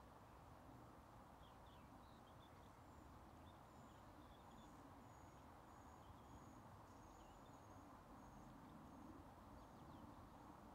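Near silence: faint open-air ambience with soft high chirps repeating about twice a second through most of it.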